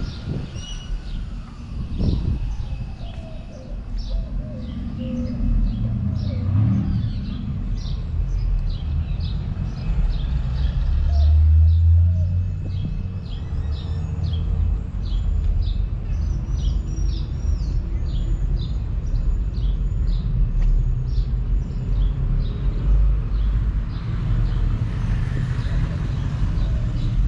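Many small birds chirping in quick, short, falling calls, over a steady low rumble that swells around the middle.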